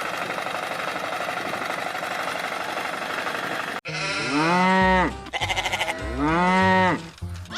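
Steady machine noise for nearly four seconds that cuts off abruptly, followed by two loud, drawn-out bleats, each rising and then falling in pitch.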